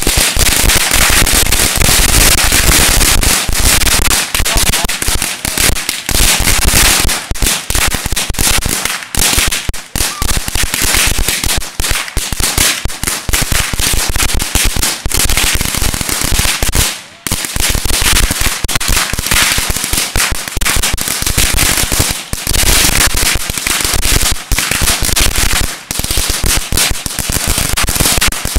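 A roll of 16,000 Black Cat firecrackers going off in a continuous rapid crackle of overlapping bangs, with one brief lull about 17 seconds in.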